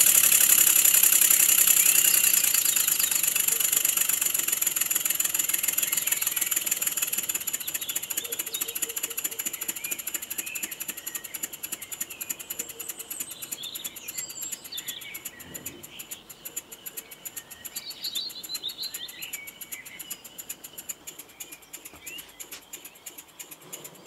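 Three-cylinder inline Wig-Wag model engine running on compressed air, its exhaust giving a fast, even chuffing that grows steadily quieter. Faint bird chirps come through in the second half.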